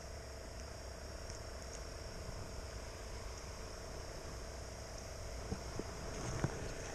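Faint, steady drone of insects in the background, with a few light knocks and taps near the end as a fishing rod is handled.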